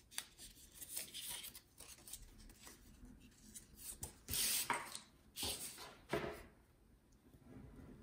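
Die-cut cardstock pieces being handled, folded and pressed down by hand on a tabletop: faint rustling and rubbing of paper, with a few louder scrapes about four to six seconds in.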